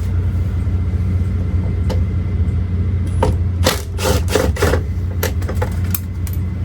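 Mercedes truck's diesel engine idling steadily. A run of sharp clicks and knocks, like hard plastic trim being handled, comes between about three and six seconds in.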